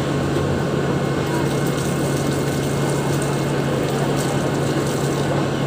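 Alsthom diesel-electric locomotive idling at the platform, a steady low drone that holds even throughout.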